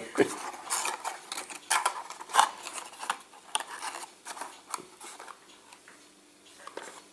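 Cardboard toy box being handled as a diecast model car is slid inside and the end flap tucked shut: a run of light taps, clicks and scrapes, busiest in the first three seconds and thinning out after about five.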